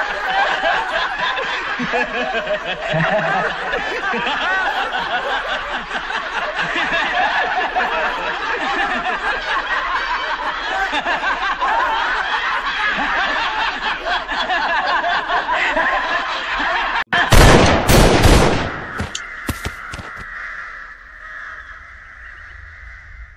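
Several men laughing loudly and at length. About seventeen seconds in, the laughter cuts off into a rapid series of loud pistol shots, which die away over the next couple of seconds.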